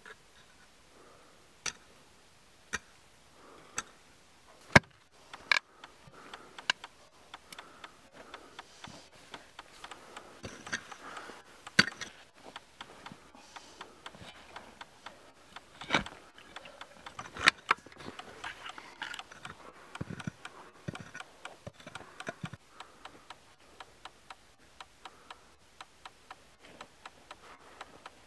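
A hammer on a wooden handle striking rock and stony ground: sharp single knocks about once a second at first, then thicker irregular clicking and rattling of broken stone through the middle, with a few louder knocks among it.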